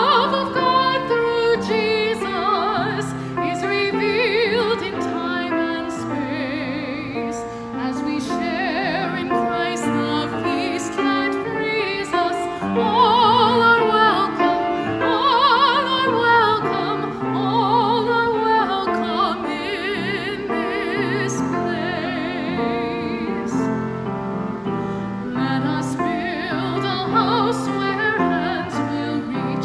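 A woman singing solo in classical, operatic style with vibrato, over a sustained instrumental accompaniment.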